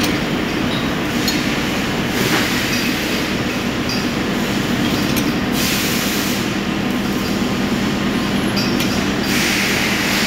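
Steady machine-shop noise: a constant motor hum under a loud rushing mechanical noise, with a few light metallic clicks as a lathe chuck's jaws are tightened with a chuck key.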